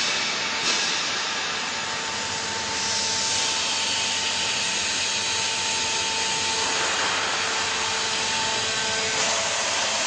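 Hydraulic vertical textile baler running as its ram presses the load down into the baling chamber: a steady hydraulic whine with a hiss, changing slightly about three seconds in and again near seven seconds.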